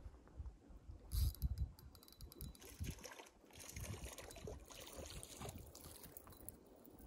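Faint splashing and trickling of water, with a louder burst about a second in and irregular low rumbles.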